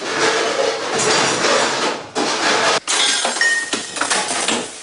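Busy kitchen clatter: plates, pots and cutlery clinking and knocking as the first course is sent out, with a short ringing clink about three and a half seconds in.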